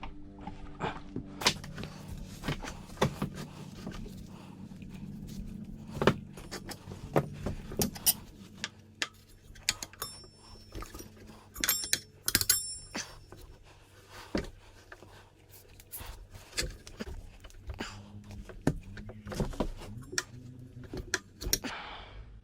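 Tire irons clacking and scraping against a motorcycle wheel rim as a rear tire bead is levered on by hand without soap: irregular metallic knocks and clinks, with a few short ringing metal tones in the middle, over a steady low hum.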